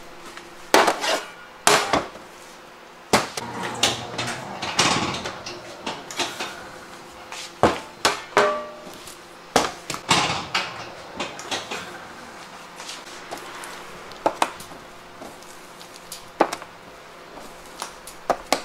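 Metal pans and baking trays knocking and clattering on a steel worktop: irregular sharp knocks, some with a short metallic ring, scattered throughout.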